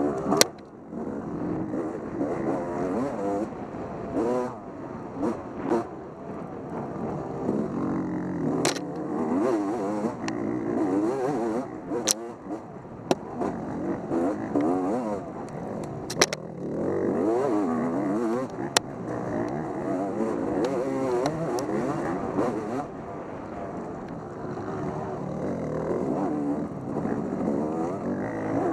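Dirt bike engine revving up and down constantly as it is ridden, with a few sharp knocks from the bike over rough ground.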